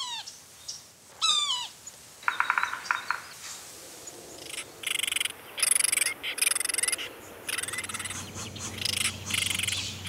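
A woodpecker gives two short falling calls, one at the start and one about a second in, followed by a brief rapid trill around two to three seconds in. From about halfway a pulsing chorus of calling frogs takes over, switching on and off in bursts.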